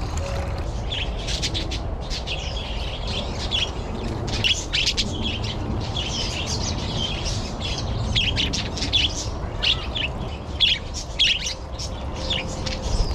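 Many small aviary birds chirping and twittering: a steady run of short, high calls that starts about a second in and grows busier from about four seconds on.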